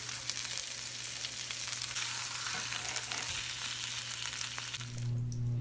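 Oxtail pieces searing in a hot pan: a steady sizzle with fine crackling pops. It fades out near the end, leaving a low steady hum.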